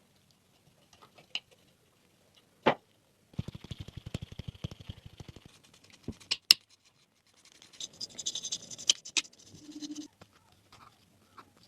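Hand work on a small diecast toy car: scattered clicks and knocks, a rapid rattling run a few seconds in, two sharp knocks, then a stretch of scratchy hiss.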